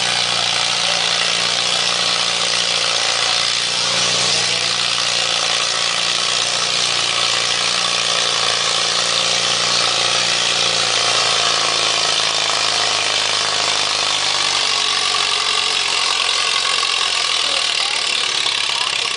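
Antique tractor engine running steadily under load as it pulls a weight-transfer sled down the track.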